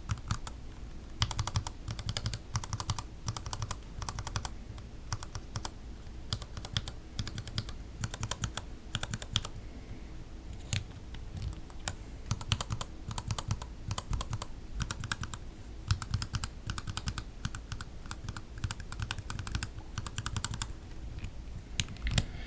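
Gateron Yellow linear mechanical keyboard switches, some in milky housings and some in black-bottomed housings, pressed over and over. They clack in quick runs as each switch bottoms out and springs back.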